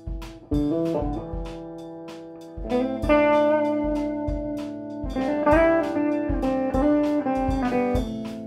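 Rock band playing, recorded raw on a single microphone in the middle of the room: electric guitar chords over a steady beat of drum hits about twice a second, swelling louder about three seconds in.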